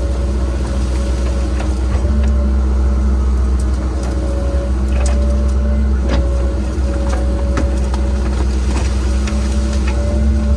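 Cat 306 excavator's diesel engine running steadily, with occasional sharp clanks and knocks.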